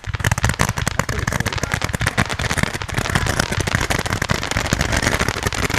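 Large consumer firework cake firing: a dense, unbroken string of pops and bangs, many a second.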